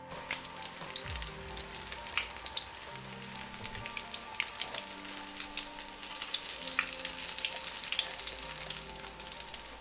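Gram-flour-battered cauliflower pakoras deep-frying in hot oil: a steady sizzle with frequent sharp crackles and pops.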